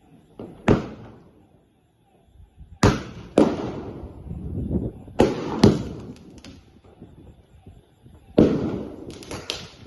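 Bangs from a 15-shot Diwali shot cracker, sharp reports each trailing off in a rumble, coming irregularly: once about a second in, then in pairs, and in a quick cluster near the end. The shells misfire and burst low instead of going up.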